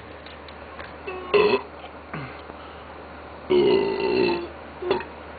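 A man burping several times, bringing up gas from carbonated soda he is chugging. There is a short burp about a second in, a longer drawn-out one midway, and a brief one near the end.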